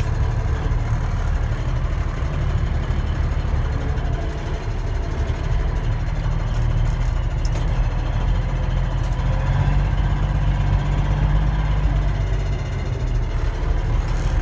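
1979 Kenworth W900A's Cummins 350 Big Cam inline-six diesel running steadily, heard from inside the cab as the truck is driven slowly in low gear. It grows a little louder partway through.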